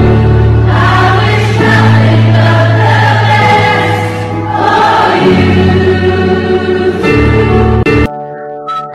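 Choral music: a choir singing over sustained low bass notes. It cuts off abruptly about eight seconds in to a quieter, thinner tune.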